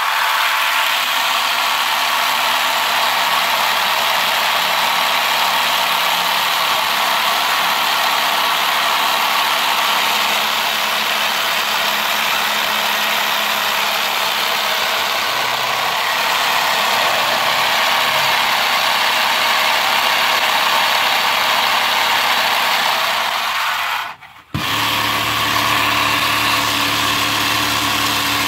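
Motor-driven LEGO model of a Toyota 4A-GE inline-four engine running: its plastic pistons, crank and valvetrain clatter and whir steadily. Near the end the sound cuts out for a moment, then resumes with a steadier low hum beneath the clatter.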